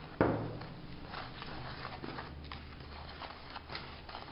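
A sharp knock, then a wire whisk stirring dry flour, cocoa and sugar in a bowl: a run of short, scratchy strokes.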